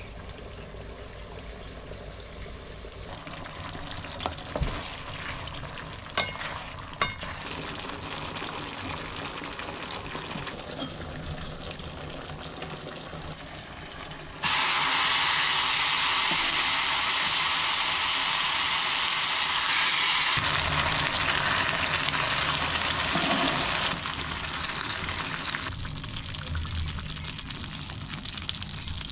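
Mapo tofu ladled into a hot black earthenware pot, sizzling: a loud hiss starts suddenly about halfway through and eases after several seconds. Before it come a quieter, steady cooking noise and a few sharp knocks.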